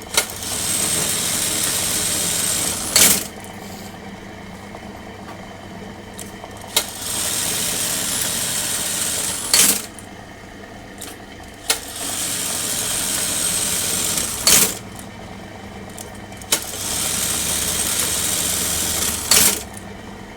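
Juki buttonhole sewing machine running four cycles: each starts with a click, stitches rapidly at a steady pace for about two seconds, and ends with a sharp clack. Its motor hums steadily between cycles.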